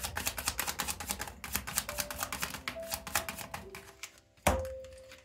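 A deck of oracle cards being shuffled by hand: a rapid run of soft clicks and flicks as the cards slip past one another, lasting about three and a half seconds. Near the end comes one sharp snap as a card is laid down on the table.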